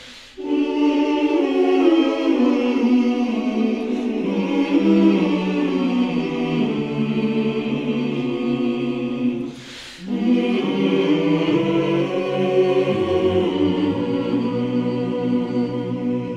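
A choir singing slow, sustained chords in two long phrases, with a brief break about ten seconds in.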